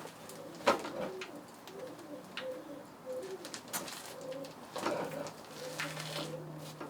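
Pigeon cooing in a repeated series of low notes, with a few sharp clicks and a low steady hum that comes in near the end.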